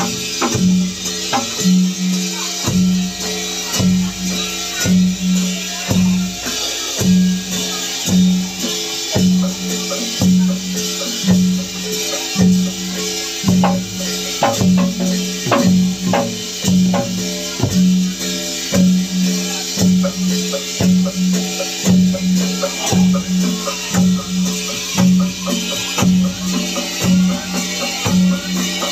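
Live dongkrek percussion ensemble playing: a large drum and gongs keeping a steady repeating beat, with a low ringing tone pulsing throughout and sharp strikes over it.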